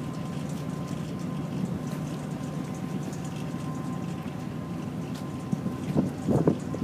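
Ferry's engine running with a steady low rumble and a faint steady hum above it. Near the end, wind starts buffeting the microphone in louder gusts.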